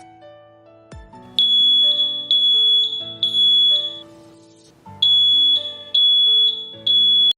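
Smart Wi-Fi smoke detector sounding its alarm: loud, high-pitched beeps in two groups of three with a short pause between, over background music.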